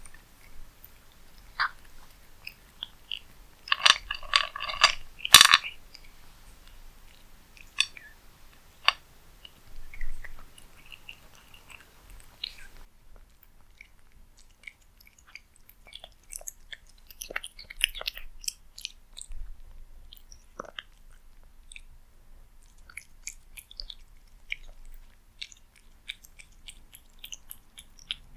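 A cat eating from a bowl: irregular short chewing and mouth clicks with a few crunches, and a louder burst of chewing about four to five and a half seconds in.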